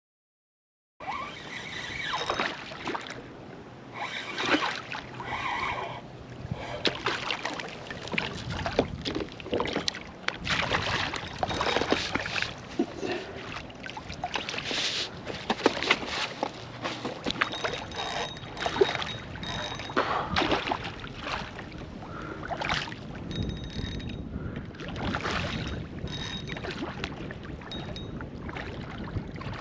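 Water splashing and sloshing around a kayak while a hooked redfish is fought, with irregular knocks from gear and the hull and some wind on the microphone. It starts about a second in.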